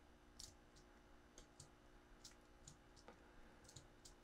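Faint, irregular clicking of a computer mouse, about a dozen clicks over a few seconds, over a low steady hum.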